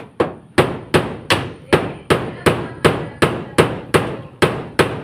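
Hammer blows in a steady, even run: about fourteen sharp strikes, roughly three a second, each with a short ring.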